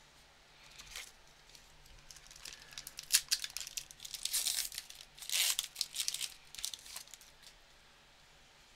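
Plastic wrapper of an Upper Deck hockey card pack being torn open and crinkled by hand, in a run of crackling bursts that starts about a second in and dies away about seven seconds in.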